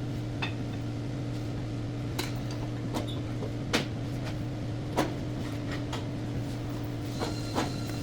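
Metal tools and brake parts clinking and knocking in a handful of separate sharp strikes during front brake pad installation, over a steady low hum.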